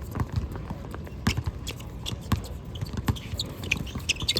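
Basketball game play: a ball bouncing on the court amid sharp knocks and thuds, with short high sneaker squeaks near the end.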